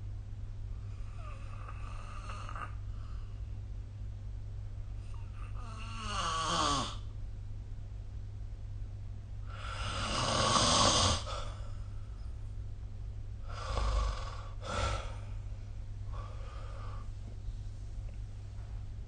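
A sleeping person snoring: a series of snores at uneven intervals. One falls in pitch, the loudest comes about halfway through, and two short ones follow close together a few seconds later. A steady low hum runs underneath.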